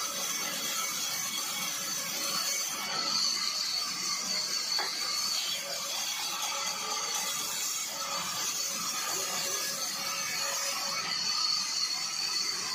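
Band saw running steadily with a high whine over a rushing noise while wooden boards are fed through it and ripped lengthwise.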